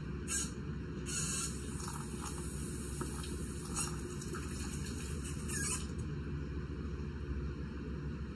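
Spatula scraping cake batter out of a plastic mixing bowl into a round cake pan: several short scrapes, over a steady low hum.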